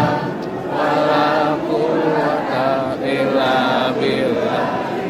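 A large crowd of pilgrims chanting a prayer together in unison, in short repeated phrases.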